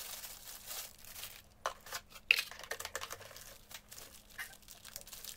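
Plastic wrapping crinkling and rustling as a laptop charger is lifted out and handled, with a few sharper crackles.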